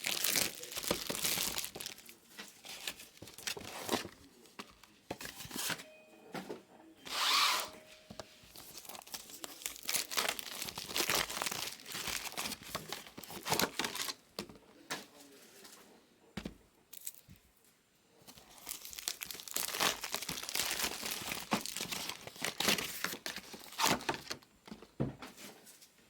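Packaging being torn and crinkled by hand in irregular bursts with short pauses, one loud rip about seven seconds in.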